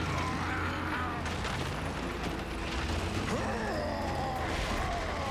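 Sound effects of heavy machinery straining: metal creaking and groaning with mechanical clanking, over a steady low engine rumble, as a tracked bulldozer robot hauls a heavy tanker truck up on a taut tow cable.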